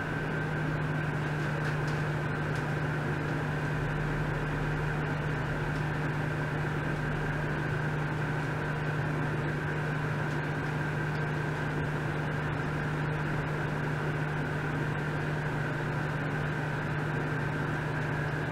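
Steady low hum with a fainter high whine over a hiss, from ultrasonic probes driven by a function generator.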